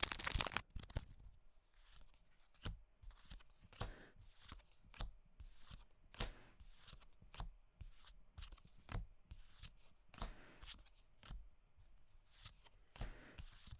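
Pokémon trading cards being handled and flipped through by hand: quiet, irregular slides and flicks of card stock.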